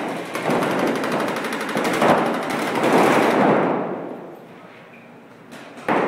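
Rapid paintball marker fire from several players at once, a fast dense stream of shots that fades away about two-thirds of the way through. A sudden loud burst of noise comes near the end.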